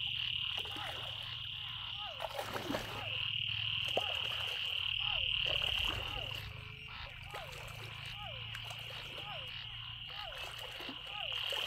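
Frogs calling from floodwater: a short call falling in pitch, repeated about once every 0.7 s, over a steady high-pitched chorus that stops and starts. Water sloshes around wading legs during the first three seconds.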